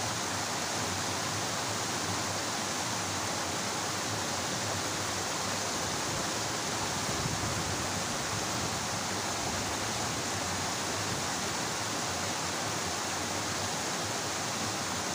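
Steady rushing of a small stream's water tumbling over a low drop, an even noise that does not change.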